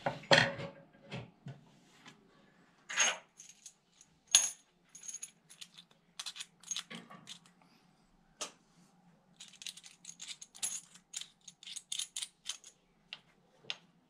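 Small metal parts of a coaxial antenna plug clicking and clinking as they are handled and set down on a paper towel on a wooden table. The clicks come irregularly, some with a brief high metallic ring, the loudest near the start and about four seconds in.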